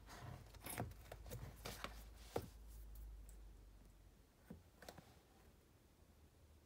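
Faint paper handling: soft rustles and a string of small clicks as the pages of a picture book are turned, with two last soft clicks about four and a half and five seconds in.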